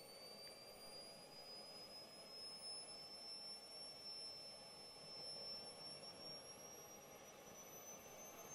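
Jet Central Cheetah model jet turbine spooling up during its start: a faint, high-pitched whine that climbs slowly and steadily in pitch as the turbine gains speed toward idle.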